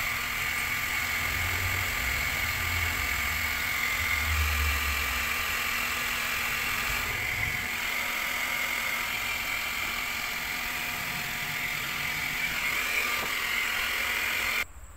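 Handheld hot-air plastic welding gun running: a steady fan whir with a high hiss. It cuts off suddenly near the end.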